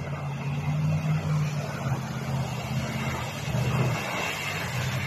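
Off-road SUV engine running steadily as the vehicle drives along a muddy dirt track.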